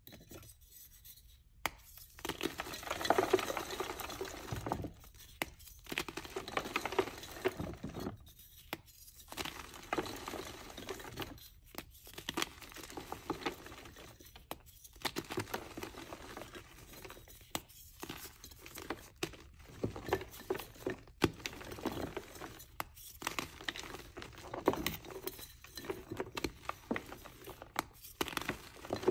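Orange reformed chalk blocks being crushed and crumbled by hand: dry crunching and crackling of breaking chalk and soft crumbly powder, in bursts with short pauses.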